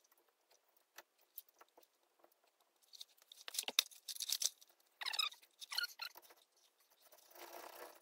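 Scattered small metallic clicks and rattles, bunched into a few clusters, of caliper bolts being handled and threaded by hand into a new front brake caliper, with a short scraping sound near the end.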